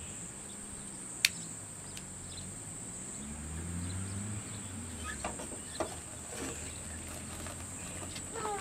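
Steady high-pitched insect chorus. A single sharp click comes about a second in, and a low hum rises and fades in the middle.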